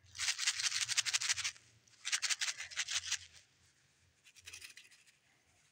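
Hello Kitty glitter button badge shaken by hand, its glitter rattling in quick, scratchy clicks: two runs of about a second and a half each, then a fainter short one near the end.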